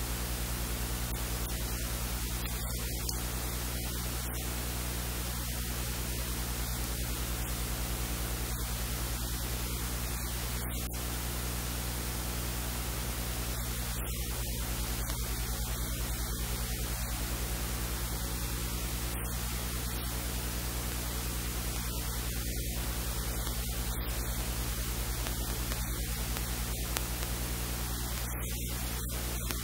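Steady electrical hiss with a low mains hum underneath, unchanging throughout.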